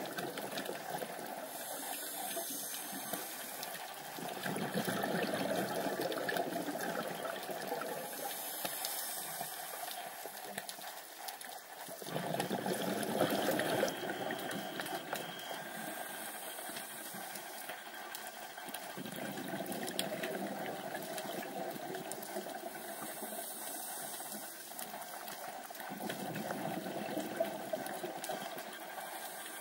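Underwater sound on a dive camera: a steady water hiss with a scuba diver's breathing through the regulator, a hissing inhale followed by a rush of exhaled bubbles, repeating about every seven seconds.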